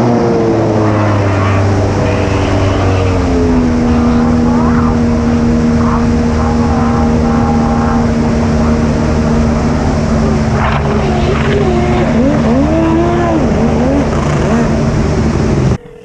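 Kawasaki 650SX jet ski with a swapped-in 1100cc two-stroke triple running loud, with a straight-through exhaust and no water box. It steps down in pitch about three seconds in, then holds a steady speed, and cuts off suddenly near the end.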